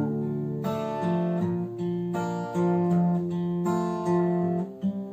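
Solo guitar playing the song's chords between sung lines, notes picked in a steady rhythm and left ringing.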